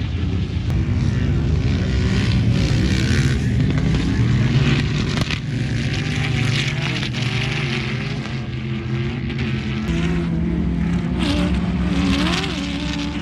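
Sand rail engines running hard and revving as the cars slide across packed sand, the revs rising and falling, with a sharp rev-up near the end.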